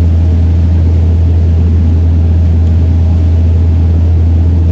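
Lobster boat's engine running steadily underway, a loud, constant low drone.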